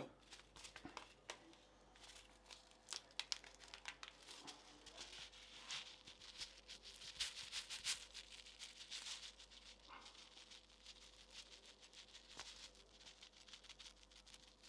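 Faint crinkling and tearing of a small packet of sesame seeds being opened and shaken out, many irregular light crackles and ticks.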